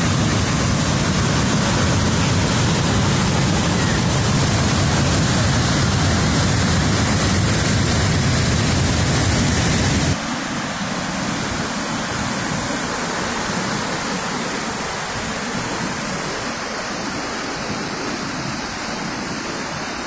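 Loud, steady rush of river rapids, white water tumbling over rocks. About ten seconds in it changes suddenly to churning water in a rock basin, a little quieter and with less low rumble.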